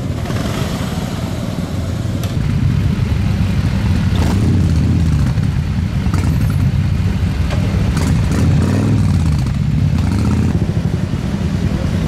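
Motorcycle engine running with a low rumble, its revs rising and falling about four seconds in and again around eight to nine seconds in.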